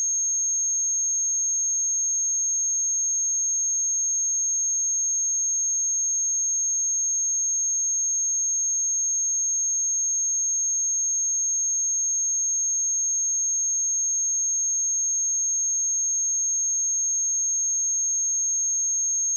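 Pure 6471 Hz sine-wave test tone, high-pitched and held perfectly steady at one pitch and level.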